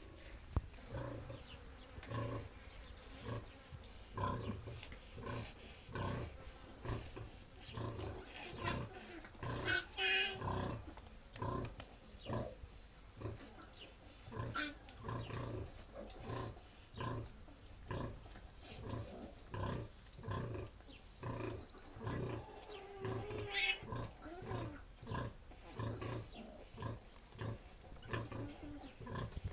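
Sow grunting in a steady rhythm of short, low grunts while her newborn litter suckles: the nursing grunts a sow makes to her piglets at the teat. A piglet squeals briefly about ten seconds in and again near the 24-second mark.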